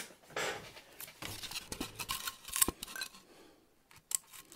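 Handling noise from a Styrodur foam wall model being turned in the hands: rustling and rubbing of the foam with scattered light clicks and scrapes, the sharpest click about two and a half seconds in.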